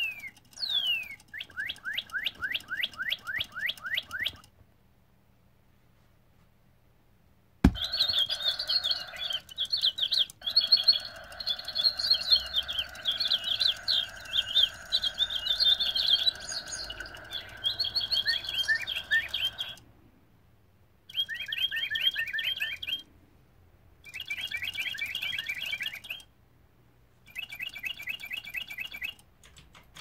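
Electronic singing bird toys chirping through their small speakers in bursts: first a fast run of falling chirps, then after a pause a sharp click and a long stretch of overlapping chirps and trills, then three shorter chirping bursts of about two seconds each near the end.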